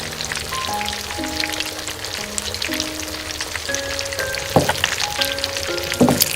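Food sizzling and crackling as it fries in a small pan, with two sharper clicks or taps partway through, over background music with a simple stepping melody.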